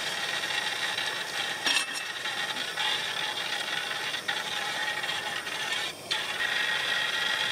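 Udon broth boiling hard in a thin aluminium foil nabeyaki tray over a gas camping stove, a steady rattling bubble, with a brief dip about six seconds in.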